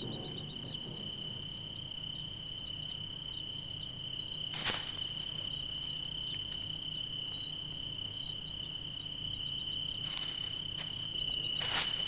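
A steady, high-pitched insect trill, with quick high chirps scattered over it and a single sharp click about four and a half seconds in.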